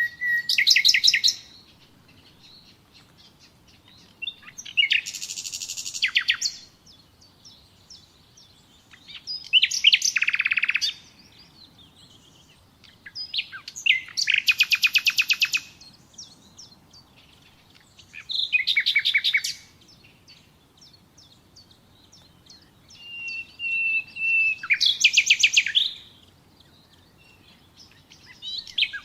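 Nightingale singing: short phrases of fast rattling trills of repeated notes, about every four to five seconds with pauses between, some phrases opening with a held whistle.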